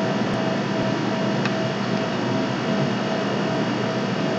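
Steady background noise: a constant hiss with a low hum and a faint steady tone underneath, unchanging throughout.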